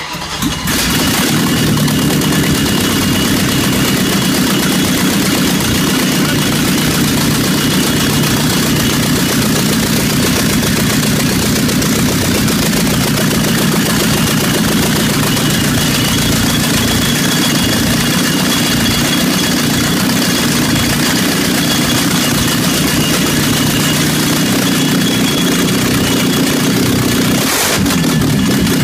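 Mercedes M117 5.5-litre V8, run on Megasquirt injection, catching almost as soon as it is cranked and then running steadily and loudly with no exhaust fitted. This is the engine's first start in five years.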